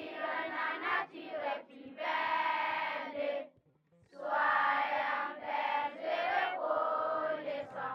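A group of voices singing together in long held phrases, with a short break just before the middle.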